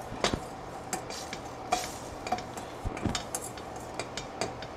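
A spatula scraping and tapping around a stainless steel frying pan in irregular clicks and scrapes while deglazing with white wine, loosening the browned bits (fond) stuck to the pan bottom.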